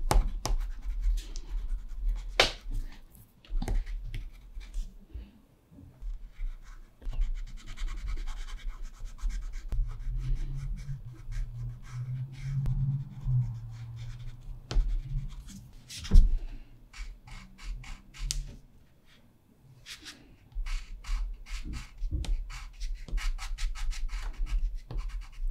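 Caran d'Ache Neocolor II water-soluble wax pastel scratching and rubbing across watercolour paper in short, repeated strokes, stopping briefly a few times.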